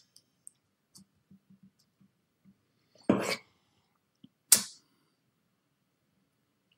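Metal scoop knocking and scraping against the cupcake tray and paper liners as thick batter is portioned out. There are two loud knocks, a longer one about three seconds in and a short, sharp one a second and a half later, with faint light taps between.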